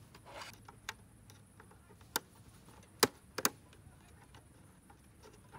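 A few sharp clicks, three of them between about two and three and a half seconds in, over faint hiss.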